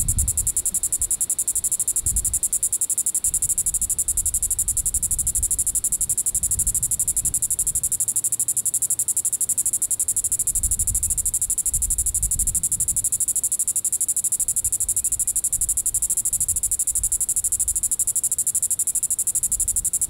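Diceroprocta vitripennis (green-winged cicada) calling: one continuous, high-pitched, unbroken buzz of very rapid pulses, held at a steady level, over a low uneven rumble.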